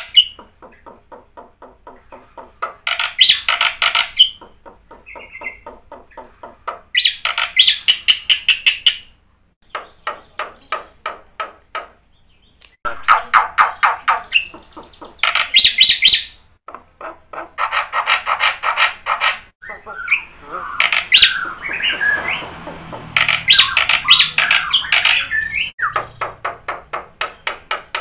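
Black-winged myna (jalak putih) singing in loud bursts of rapid, harsh chattering notes, each burst a couple of seconds long, separated by quieter fast ticking. A few whistled notes are mixed in about three-quarters of the way through.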